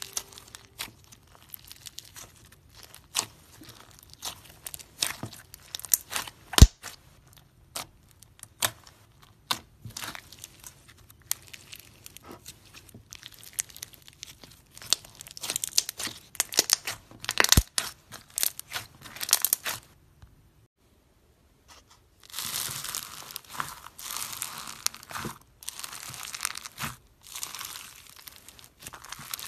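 Hands stretching and squishing crunchy slime studded with small beads: a scattered run of crackles and sharp pops, with two much louder snaps. After a short gap about twenty seconds in, white foam-bead slime (floam) is kneaded, giving denser, continuous crackling.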